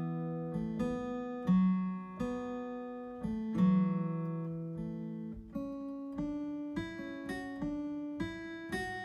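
Background acoustic guitar music: a slow melody of single plucked notes and chords, each left to ring.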